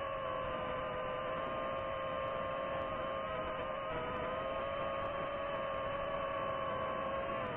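DJI FPV drone's motors and propellers whining in flight: a steady hum of several tones over rushing noise. The pitch wavers slightly with throttle and shifts near the end.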